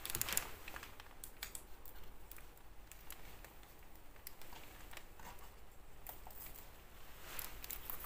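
Faint, scattered light clicks and rustles of fingers handling a small adhesive picture-hanging pad on a painted wall.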